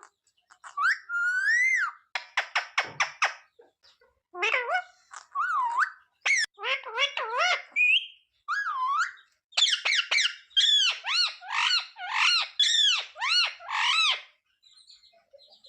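Ringneck parakeet calling and chattering: varied short chirps and whistles, a quick run of clicks a few seconds in, then a rapid string of repeated rising-and-falling calls in the second half.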